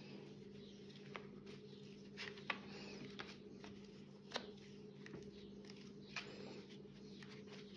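Faint rustling of thick cotton macramé cord being pulled and knotted by hand, with a few light clicks scattered through, over a low steady hum.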